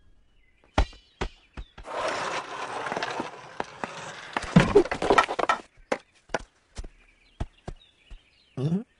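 Cartoon slapstick sound effects: scattered sharp knocks and thuds, a dense scuffling clatter with loud hits from about two to five and a half seconds in, then a short rising animal cry near the end.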